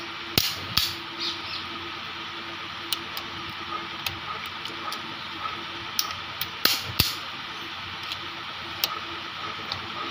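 Click-type torque wrench giving sharp clicks as cylinder head bolts reach their set torque on the final tightening pass, two near the start and two more about two-thirds of the way through, with lighter ticks in between.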